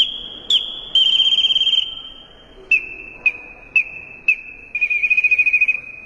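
Small Inca-style hummingbird whistle blown in a high, steady tone, broken by short chirping attacks and two fast warbling trills that imitate a hummingbird's call. The pitch steps down a little about halfway through.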